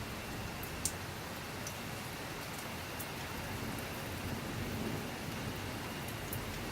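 Steady rain falling, with a low rumble of distant thunder swelling in the middle and a few sharp drips.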